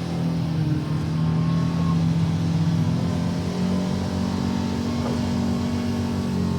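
UTV engine running under load, with its pitch rising a little partway through and then holding steady.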